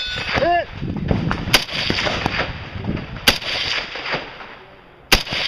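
Three rifle shots, spaced about a second and three quarters apart, each trailing off in an echo.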